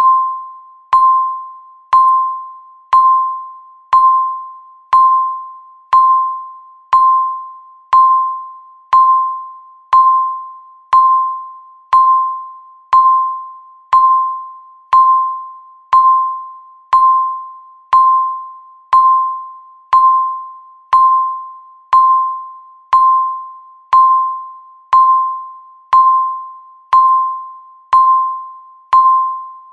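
Countdown timer beeping once every second: a short electronic beep at one steady pitch that starts sharply and fades away before the next.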